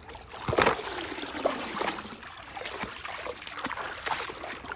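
Water splashing and dribbling as hands work in a shallow rainwater puddle, with scattered sharp knocks of plastic toys being handled, the loudest about half a second in.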